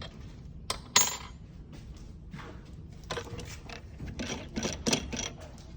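Small metal tools or parts clinking and clattering as they are handled: a sharp ringing clink about a second in, then a quick run of light metallic clatters near the end.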